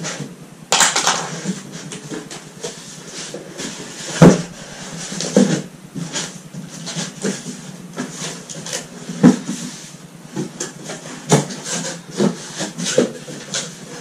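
Cardboard box being handled and its flaps folded: scraping and rustling of cardboard with scattered knocks, the loudest about four seconds in.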